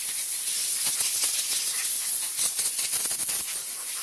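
Compressed-air blow gun blasting air over a freshly washed PLC circuit board: a loud, steady hiss with a fine crackle running through it.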